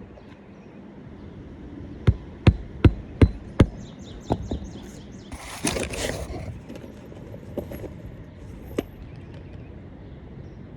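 Hammer driving a roofing nail into an asphalt shingle: five quick, evenly spaced blows about two seconds in, then a few lighter taps. A noisy scraping burst lasting about a second comes midway.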